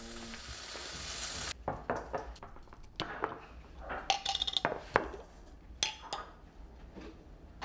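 Glass jars and a screw lid being handled on a stone countertop: scattered knocks and clinks, a few of them ringing briefly. They are preceded by a hiss that stops abruptly about a second and a half in.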